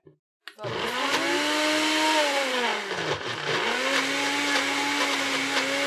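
Countertop blender pureeing a thick peach mixture: the motor starts about half a second in, slows and nearly stops about three seconds in, then spins back up and runs steadily.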